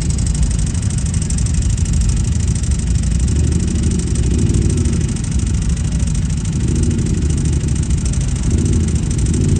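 Snorkeled ATV engine running with a steady deep rumble, its revs rising and falling briefly three times.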